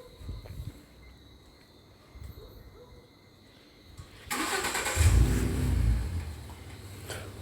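Ford Mustang engine starting: after a few seconds of quiet with small knocks, it cranks and catches about four seconds in with a loud rev, then settles into a steady idle.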